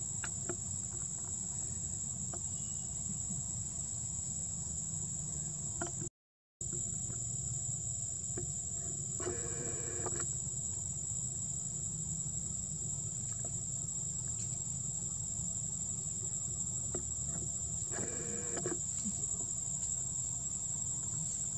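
Insects droning in a steady, high-pitched tone over a low rumble of outdoor ambience, with two brief pitched calls about nine seconds in and again near eighteen; the sound cuts out for a moment about six seconds in.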